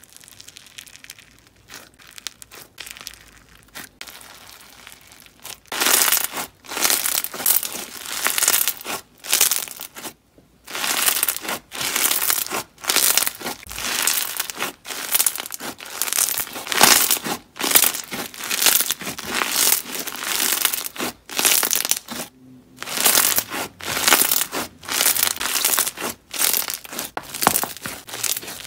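Hands squishing, squeezing and stretching fluffy cloud slime mixed with polymer clay slices, giving crackly, crinkly crunching in repeated bursts. It starts faint and grows much louder about six seconds in.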